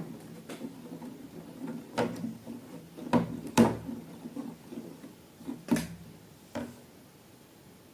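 Irregular knocks and clicks of objects being handled, about half a dozen spread over several seconds, the loudest two close together a little before the middle.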